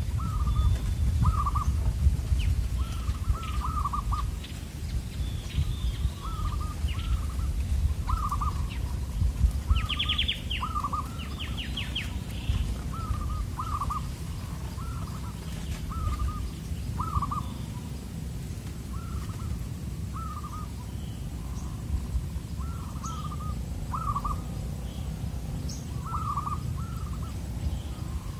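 Zebra doves (perkutut) cooing, a steady series of short rolling phrases about a second apart. About ten to twelve seconds in, another small bird adds a few quick high chirps.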